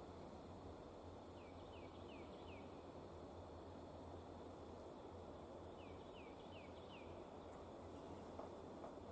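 A songbird singing faintly: a phrase of four quick down-slurred whistled notes, heard twice, over a steady low background hum.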